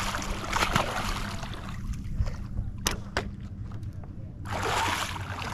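Water splashing and sloshing as a swimmer ducks under beside a boat hull. It goes quieter midway, with a couple of sharp knocks, then there is more splashing near the end.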